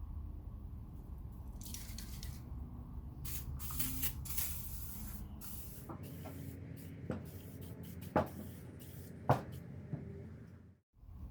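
Several short bursts of hissing spray, then three sharp clicks about a second apart.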